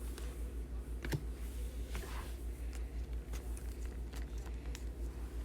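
Trading cards being flipped through and handled, with faint irregular clicks and taps a few times a second over a low steady hum.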